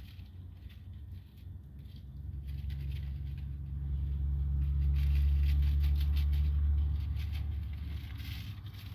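A car passing: a low engine hum swells over a few seconds and fades again. Light rustling and clicking runs along beside it.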